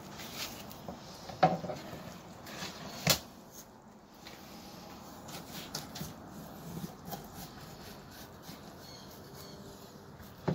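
Knife and fish being handled on a plastic cutting board during filleting: two sharp knocks about a second and a half and three seconds in, with quieter scattered taps and handling noise.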